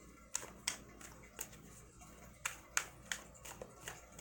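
Tarot deck being shuffled by hand: a string of sharp card snaps and clicks at an irregular pace, about nine in all.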